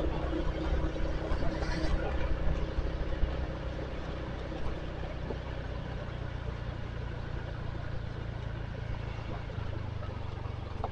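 Vehicle engine running as it drives along a road: a steady low hum with road noise, easing to a quieter level a little over three seconds in.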